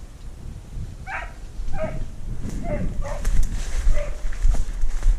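A hunting dog giving voice on the chase: short repeated barks, about one every 0.7 seconds, starting about a second in. Underneath is the rustle and rumble of someone pushing through brush.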